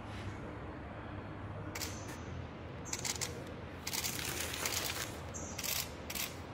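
Film sheet and its paper backing rustling and crinkling under the hands in several short bursts, the longest about four seconds in, over a steady low factory hum.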